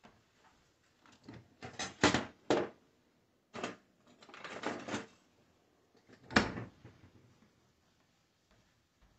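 Knocks and clatter from kitchen handling out of view: a quick cluster of sharp knocks about two seconds in, a ragged run of clatter around four to five seconds, and one loud knock at about six and a half seconds.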